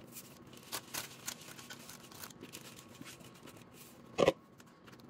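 Crumbly chicken-feed and seed mixture being spooned and scraped out of a large bowl into a metal springform pan: soft, scattered scraping and pattering of falling clumps, with a single louder knock about four seconds in.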